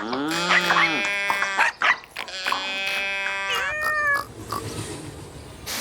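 Cartoon farm-animal calls: two long pitched calls that slide up and down, each lasting nearly two seconds, then a quieter stretch.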